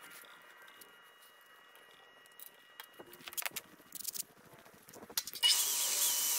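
Clicks and rattles as a cordless drill is picked up and handled, then about five seconds in the drill starts and runs steadily with a high whine as it bores into aluminum sheet.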